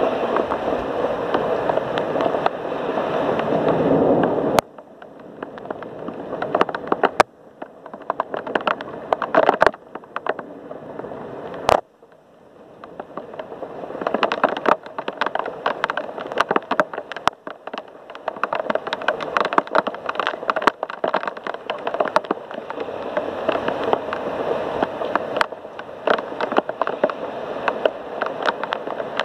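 Heavy rain with a dense crackle of close drips and splashes. It cuts back suddenly about four and a half seconds in and again about twelve seconds in, each time building back to a steady downpour.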